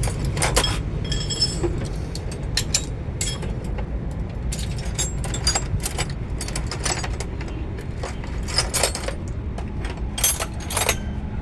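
Metal hand tools and parts clinking and tapping at uneven intervals, about a dozen sharp clinks, over a steady low rumble.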